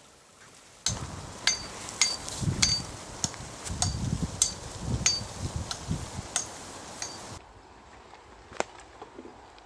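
Footsteps through tall grass with carried gear clinking, sharp clicks about twice a second over low thuds and rustle. Near the end it turns quieter, with one sharp click as a canvas bag is handled.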